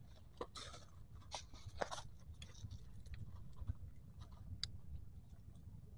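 Coral gravel crunching and clicking as a hand moves fish about on it. There are a few sharper clicks in the first two seconds, then lighter scattered ones, over a low steady rumble.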